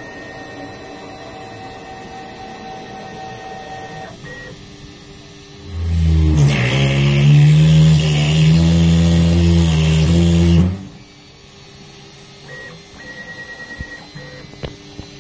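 CNC router with a Kress spindle engraving acrylic with a V-bit. There is a steady machine whine with a few high tones. About six seconds in it turns into a much louder, lower drone with hiss, lasting about five seconds, then drops back to the quieter whine.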